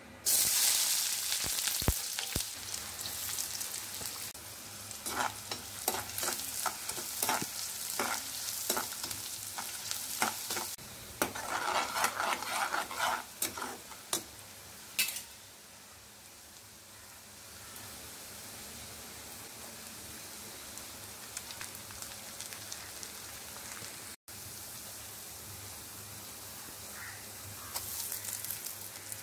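Chopped onions dropped into hot oil in a kadai set off a loud sizzle that slowly dies down. They then fry on with the scrape and clatter of a steel slotted spatula stirring them. Near the end the sizzle picks up again as ginger-garlic paste goes in.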